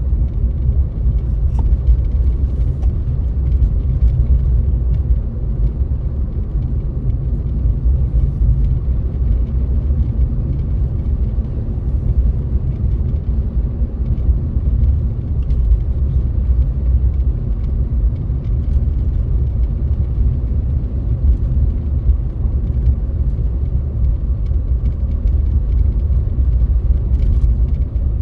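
Steady low rumble of a car being driven, engine and road noise picked up inside the cabin by a dashcam microphone.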